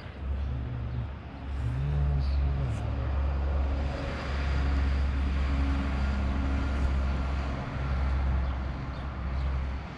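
Vehicle engine running and tyre and road noise heard from inside the cab while driving. The engine note rises and falls about two seconds in, and the road noise grows louder from about four seconds.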